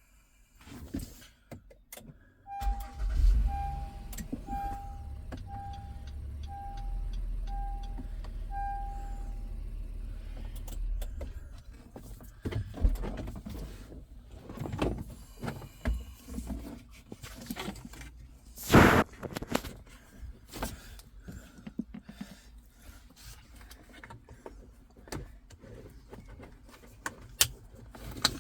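A 2017 Honda Pilot's engine starts, runs with a low rumble and shuts off about ten seconds in, while the car's warning chime beeps seven times, about once a second. Clicks and knocks of handling in the cabin follow, the loudest a sharp click near the end.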